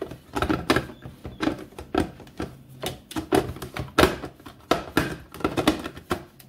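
A plastic food processor being taken apart and handled: the bowl and chopping blade knock and click irregularly, a few times a second.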